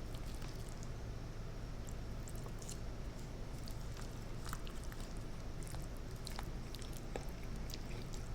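Close-miked chewing of spicy chicken rigatoni: small wet mouth clicks and smacks scattered over a steady low hum.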